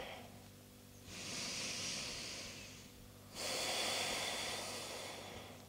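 A person breathing close to the microphone: two long breaths, one starting about a second in and the next just past three seconds, each fading away.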